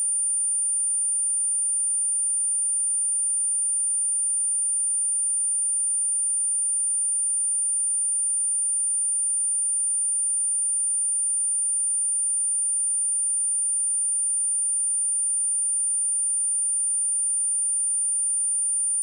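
A steady pure sine-wave test tone at 9218 Hz, a single high-pitched whistle held at constant pitch and level, used as a speaker test and speaker-cleaning tone.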